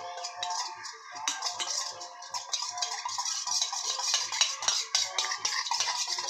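A metal spoon stirring quickly in a vessel, with rapid, irregular clinks and scrapes against its sides. Soft background music with a steady beat plays underneath.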